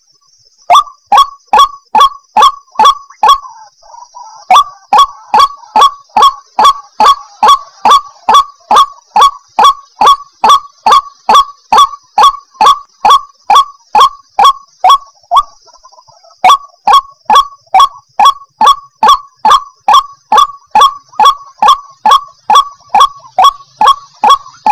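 White-breasted waterhen calling: a loud, rapid string of repeated sharp "ruak" notes, about two to three a second. The string breaks briefly near the start, about four seconds in and about sixteen seconds in. A steady faint high-pitched hum runs behind it.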